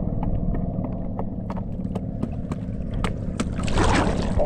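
Seawater lapping and slapping against a bangka's outrigger float and a swimmer's body close to the microphone, with sharp little splashes and a louder splash about four seconds in, over a steady low rumble.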